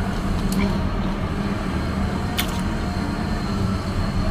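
Rain falling outside, a steady low rumbling hiss, with a couple of short sharp clicks about two seconds in and at the end.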